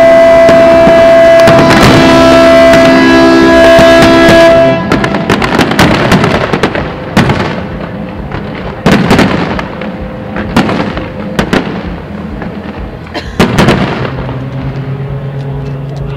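Loud music of sustained chords for about the first five seconds, then aerial firework shells bursting: a string of sharp bangs at irregular intervals, with music faintly behind them.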